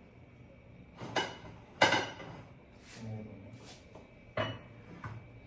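Kitchenware being handled: a handful of sharp knocks and clinks, the loudest just under two seconds in with a brief ring.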